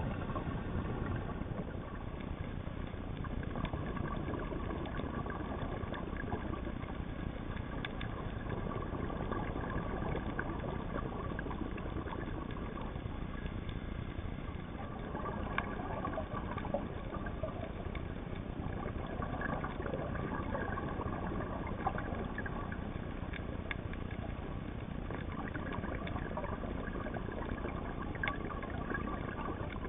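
Underwater ambience picked up by a diver's camera: a steady low rumble with water noise and a few faint, brief clicks.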